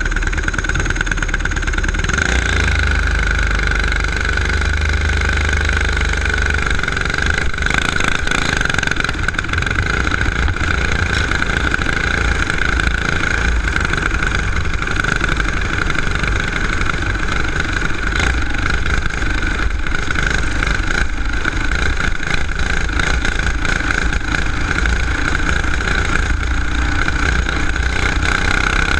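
Racing kart's small single-cylinder engine running continuously, heard close up from on board as the kart rolls out and laps a dirt oval.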